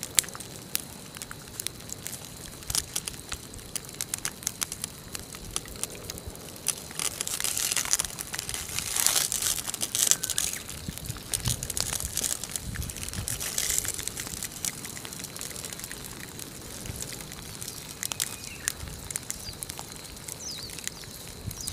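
Lava flow crackling: an irregular run of sharp clicks and ticks as its cooling crust cracks, with stretches of hiss that swell about seven to ten seconds in and again near thirteen seconds.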